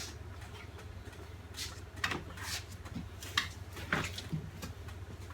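A handful of scattered knocks and clanks from tools and parts being handled, over a steady low hum.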